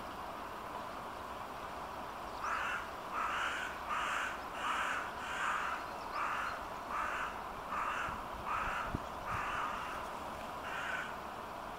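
A crow cawing over and over in a long, steady series, about one harsh caw every two-thirds of a second, starting about two seconds in, over a steady background hiss.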